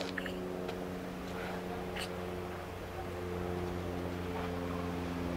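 A steady low drone of several held tones over a low hum, with a few faint clicks.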